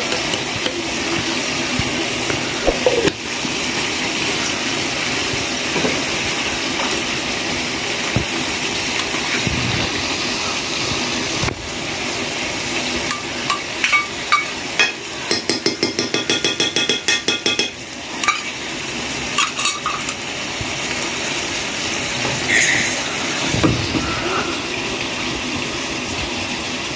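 Chicken pieces frying with a steady sizzle in a pan over a wood fire. Midway a metal spoon clinks rapidly against a steel bowl for about three seconds, with a few other knocks of steel dishes.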